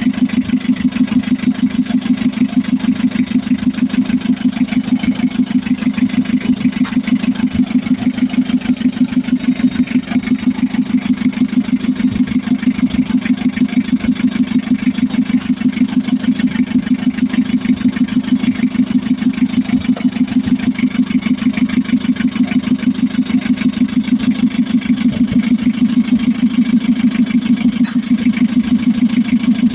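Diesel engine of a Mitsubishi L300 FB van idling steadily with an even, fast pulse. It now starts and runs after a new fuel feed pump cured its hard starting.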